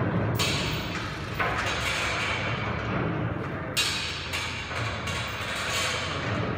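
Old 250-ton overhead crane being moved by its hand chain: chain rattling and metal clunking from the crane, changing abruptly every second or two over a steady low hum.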